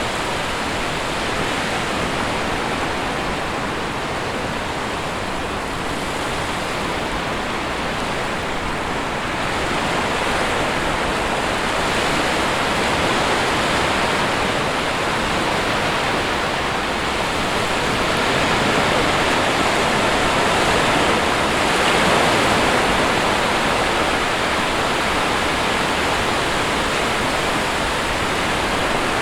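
Sea waves washing onto a shore: a steady rush of surf that swells a little about two thirds of the way through.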